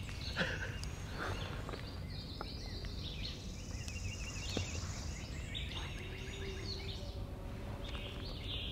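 Several woodland songbirds singing, a mix of short chirps and repeated trills, over a steady low background rumble.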